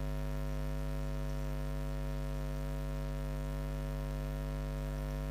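Steady electrical mains hum, a low buzz with many evenly spaced overtones, holding level throughout.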